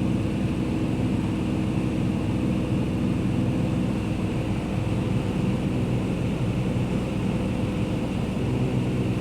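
Propeller airplane engine droning steadily at a constant pitch, with no change in speed.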